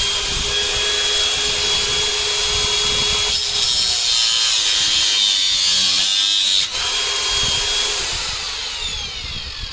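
Cordless angle grinder with a cutoff wheel running at speed and cutting through a steel bolt, with a harsher grinding hiss from about three and a half to nearly seven seconds in. The motor does not bog down under the cut. After about eight seconds it is switched off and the wheel spins down with a falling whine.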